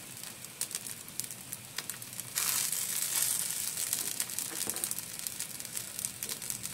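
Wingko dough patties sizzling and crackling on a hot grill pan, the sizzle growing suddenly louder about two and a half seconds in as another raw patty is laid down.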